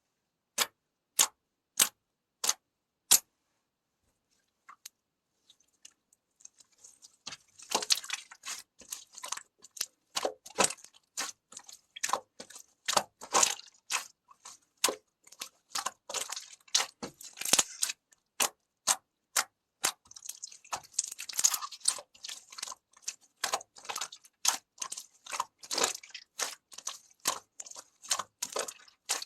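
Heart-shaped clay being crushed: five sharp clicks about half a second apart, then after a short pause steady crunching and crackling full of sharp snaps.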